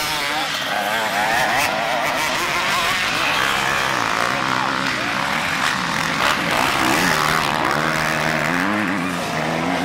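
Several motocross bikes' engines revving as the bikes pass one after another through a corner, the pitch rising and falling as the throttles open and close.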